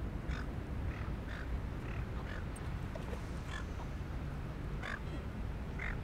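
A bird giving short calls, spaced irregularly, some close together and some a second or more apart, over a steady low rumble.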